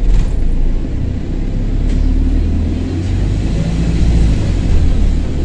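Double-decker bus engine pulling away, a loud low rumble heard from the upper deck, with a faint high whine that climbs and falls back in the middle: the sound of a burst turbo exhaust.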